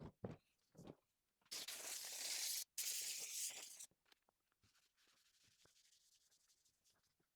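Two rough scraping or rubbing strokes, each about a second long, after a few light knocks, followed by faint rustling.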